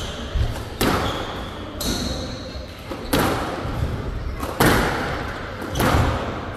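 Squash rally: the ball is struck hard by rackets and slams off the court walls, five sharp smacks about a second and a bit apart, each echoing in the hall, with brief high squeaks in between.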